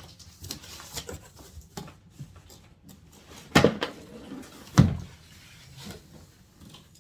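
A doll's box being opened by hand: light rustling, scraping and small clicks of the packaging, with two sharp knocks a little over a second apart near the middle.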